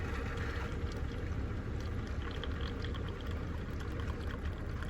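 Small drip coffee maker brewing: water gurgling and sputtering through the brew head with small irregular pops, over a steady low hum.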